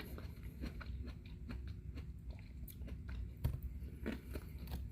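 A person biting into and chewing a red apricot: a run of soft, irregular wet mouth clicks, with one sharper click about three and a half seconds in.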